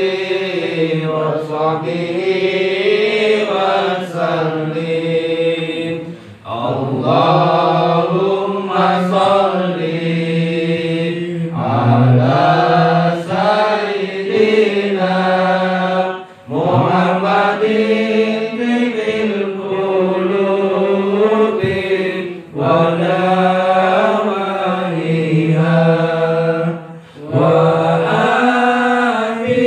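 Arabic sholawat chanted in long, drawn-out melodic phrases, each swelling and bending in pitch, with short breath breaks between them.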